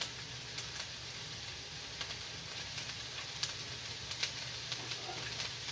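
Chopped onions, red pepper, garlic and ginger sautéing in olive oil in a nonstick skillet, sizzling steadily with a few faint pops.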